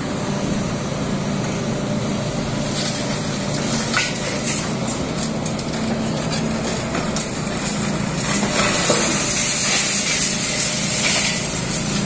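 Hydraulic excavator's diesel engine running steadily under load while its pulverizer attachment crushes concrete and masonry, with sharp cracks of breaking material now and then.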